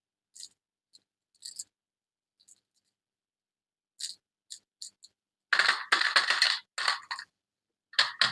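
Surprise-egg or toy packaging being handled: a few light clicks and taps, then, after about five seconds, loud bursts of wrapper crinkling and tearing, with a second burst near the end.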